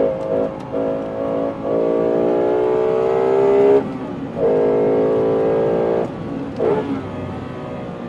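Lexus LFA's 4.8-litre V10 heard from inside the cabin, carried in through the car's tuned intake sound channels. There are a few short throttle blips, then a pull of about two seconds with the pitch slowly rising. It cuts off sharply, pulls again for about a second and a half, blips once more and settles to a lower, quieter note.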